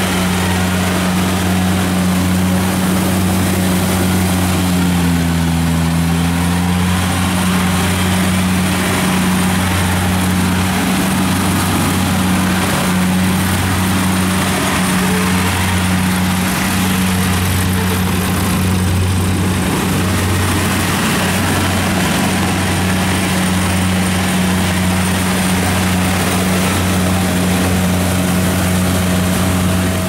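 Kubota DC70 combine harvester's diesel engine running steadily under load while it cuts rice, its pitch dipping briefly about five seconds in.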